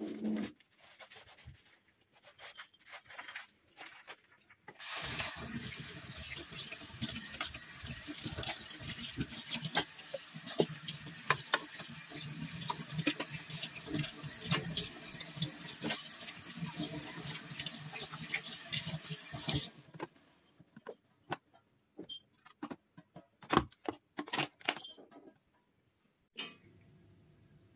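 Water running hard from a tap for about fifteen seconds, with small knocks and clatter in the stream, then cutting off. Scattered clicks and knocks come before and after.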